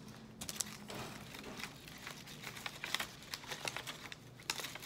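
Quiet, irregular crinkling and rustling of toy packaging being handled and unwrapped by hand.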